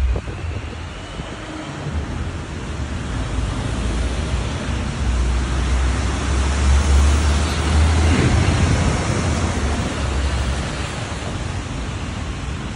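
Street traffic: a vehicle passing close by, its tyre and engine noise swelling to a peak about seven to eight seconds in and then fading, with wind rumbling on the microphone.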